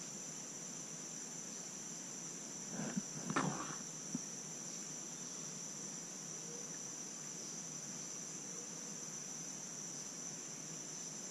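Steady high-pitched insect chorus, unbroken throughout, with a short faint noise about three seconds in.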